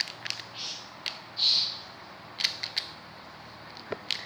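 Foam squishy toy being bitten and handled: two short soft hissing squishes, then a few faint clicks.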